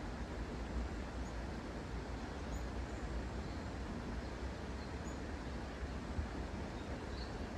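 Steady low outdoor rumble with faint, brief bird chirps every second or two.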